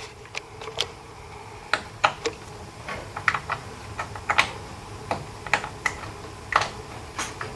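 Light, irregular clicks and taps of cables and plastic connectors being handled and plugged in inside a desktop computer case.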